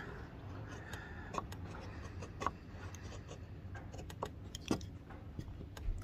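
Flat-ground blade of a Mikov Praktik pocket knife carving shavings off a wooden stick: a scatter of faint, short scraping strokes and clicks.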